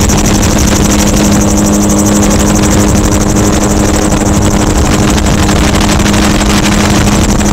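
Gyrocopter's engine and propeller running steadily in flight, a constant drone with a fast flutter on top. Heard from the open cockpit, with heavy wind noise on the microphone.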